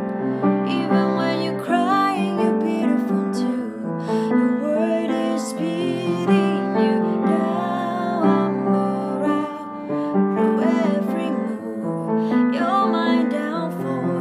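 Slow piano ballad: a woman singing with vibrato over steady piano chords.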